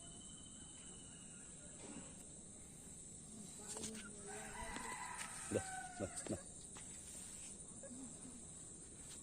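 Aseel rooster crowing once, about four seconds in, the crow lasting roughly two seconds, with a few sharp clicks near its end.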